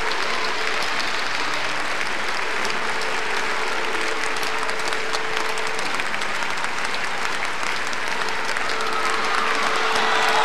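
Large crowd applauding steadily in a hall, the applause swelling slightly near the end, with a few voices calling out over it.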